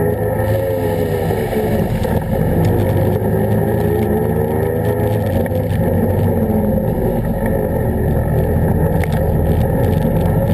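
Can-Am ATV engine running while riding, its pitch rising and falling with the throttle every few seconds over a steady low rumble from the machine and terrain.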